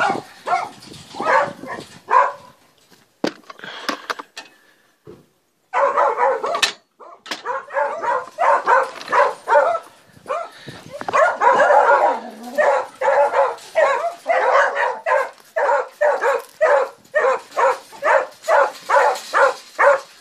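A pack of Basset Fauve de Bretagne hounds barking in their kennel runs, excited at feeding time. After a few scattered sounds and a brief pause, the barking starts about six seconds in and keeps up as a steady string of barks, about two a second.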